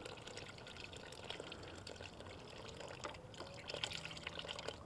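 Beef stock pouring from a carton into a large pot of thick stew: a faint, steady trickle and splash of liquid.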